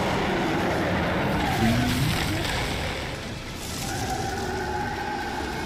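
Cartoon monster sound effects: a huge troll-like beast roaring and growling over dense, noisy fight sound. A steady pitched tone comes in about four seconds in and holds to the end.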